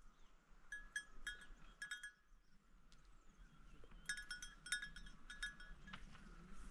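Small neck bells on livestock clinking in quick irregular strikes, in two clusters about a second in and again about four to five and a half seconds in; faint.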